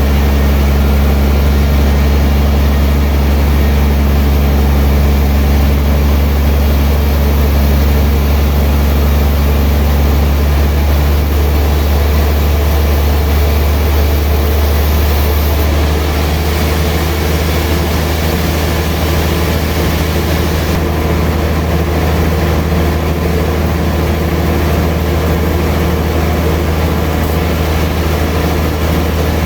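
Sawmill machinery running with a steady low hum and several steady higher tones; the sound changes slightly about ten seconds in.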